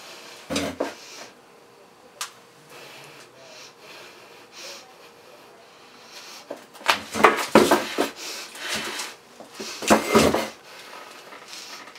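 A chair knocking, rattling and scraping as a person bound to it with duct tape struggles against it: a few light knocks early on, then two loud bursts of rattling about seven and ten seconds in.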